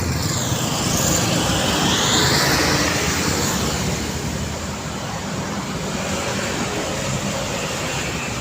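Road traffic: motor vehicles running past on a busy city street. One vehicle passes close, its noise swelling and fading over the first few seconds with a whooshing sweep, then the steady traffic noise continues.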